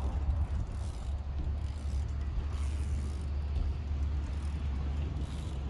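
Steady low wind rumble on the microphone, with a BMX bike rolling across a half-pipe ramp as the rider goes up the wall and rolls back down backwards in a fakie.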